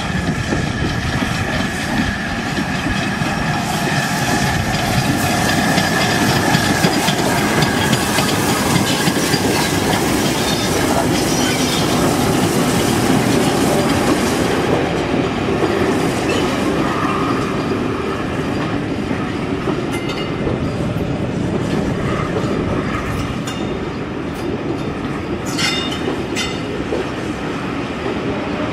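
LMS Black Five steam locomotive 44871 and its coaches rolling slowly into a station, wheels clicking over the rail joints. There is a held squeal of wheels on the curve in the first several seconds, and a few sharp clicks near the end as the train draws to a stop.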